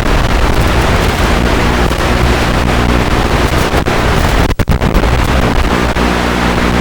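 FPV drone's motors and propellers running, with heavy wind rush on the onboard microphone. A steady hum of even tones comes in for a couple of seconds and again near the end, and the sound cuts out for a moment about halfway.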